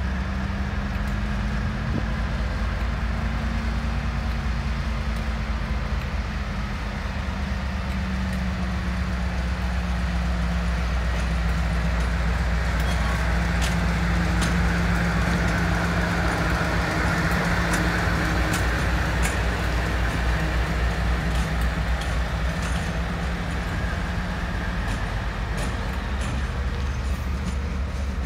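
Class 56 diesel locomotive's Ruston-Paxman 16-cylinder engine running steadily at low power as the locomotive moves slowly, growing louder as it passes close about halfway through. A few light clicks come in the second half.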